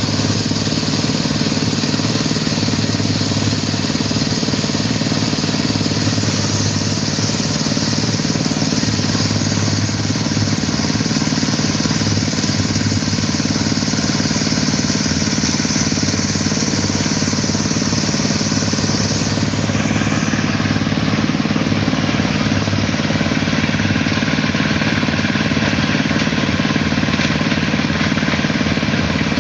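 Small portable concrete mixer's engine running steadily at a constant speed.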